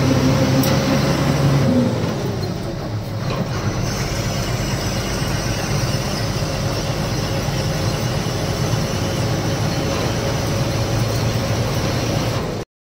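Lorry running with a steady rumble of engine and road noise; the sound cuts out briefly near the end.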